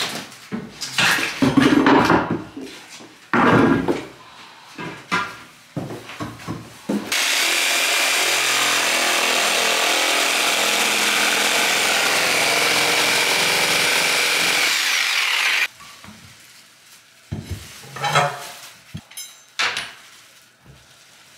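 Irregular knocks and scrapes of hand tools prying at old floorboards, then a reciprocating saw runs steadily for about eight seconds, cutting through a wooden floorboard, and stops abruptly; the knocking and scraping then resumes.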